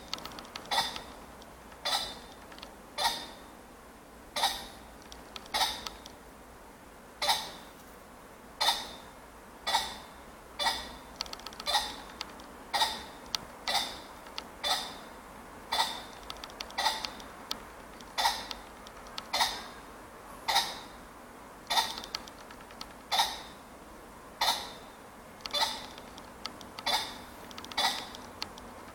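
Male ring-necked pheasant calling: short, sharp clucking notes repeated roughly once a second.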